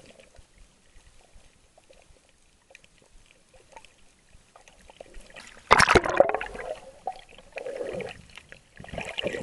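Shallow seawater sloshing and gurgling: faint for the first few seconds, then a loud splash about six seconds in, followed by two shorter sloshes near the end.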